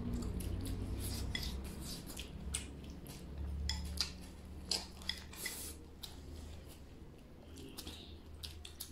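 Wooden chopsticks clicking and scraping against a porcelain bowl as food is shoveled into the mouth: a dozen or so short, scattered clicks over a faint low hum.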